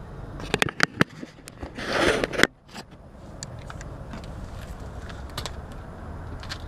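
A few sharp clicks and a short rustle of handling, cut off abruptly, over a low steady hum.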